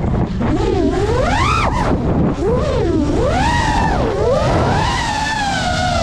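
FPV quadcopter's brushless motors and propellers whining loud and steady, the pitch swooping up and down several times as the throttle is punched and cut through dives and turns, over a low rumbling noise.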